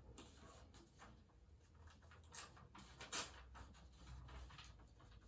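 A sheet of notebook paper handled and torn by hand: faint rustling with two short, louder crackles about two and three seconds in.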